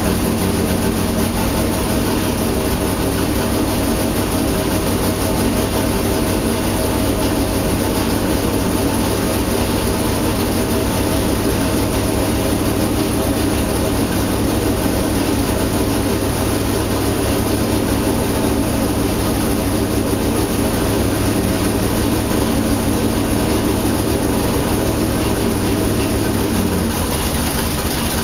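406-cubic-inch small-block Chevrolet V8 on an engine dyno, running loud at a steady, unchanging speed before the pull.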